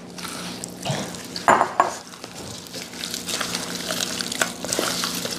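Sliced beef steaks being mixed through an oily marinade of olive oil, Worcestershire sauce and honey with dry spices: irregular wet squelching with scattered small clicks.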